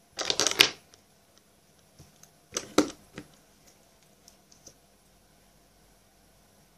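Plastic makeup containers clicking and clattering as they are handled and opened on a tabletop: a quick cluster of clicks right at the start, a second cluster about two and a half seconds in, then a few faint ticks.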